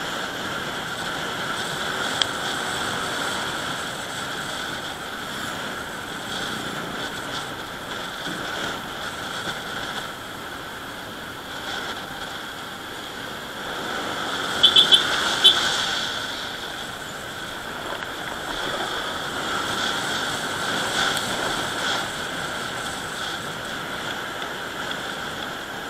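Motorcycle riding along a road, heard from a camera on the bike: a steady mix of engine and wind noise. About halfway through come four quick, high beeps close together.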